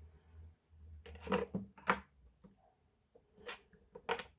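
Small tools and phone parts handled on a workbench during an iPhone screen replacement: four sharp taps and clicks in two pairs, the second the loudest.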